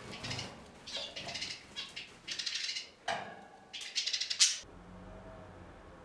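Budgerigar chattering in four short, harsh bursts, which stop suddenly a little after four seconds in. A faint low hum remains after that.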